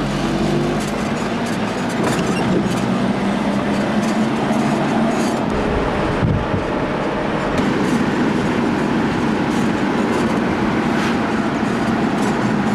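Steady engine and road noise heard from inside a moving vehicle, with a low hum and occasional light rattles.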